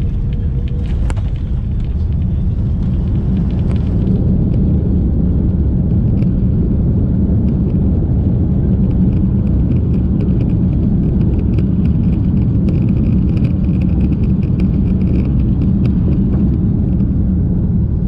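Steady, loud rumble inside an airliner cabin as the plane rolls along the ground: jet engine noise and wheels on the pavement, growing a little louder about four seconds in, with faint rapid rattling in the cabin.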